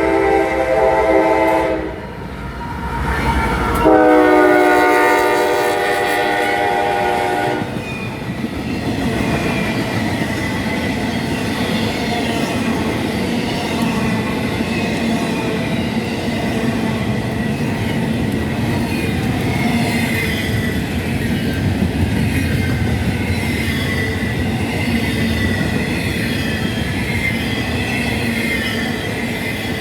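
Locomotive's Nathan K5LA five-chime air horn sounding: one blast that cuts off about two seconds in, then a second blast of about four seconds. After that comes the steady rumbling and clickety-clack of the train passing.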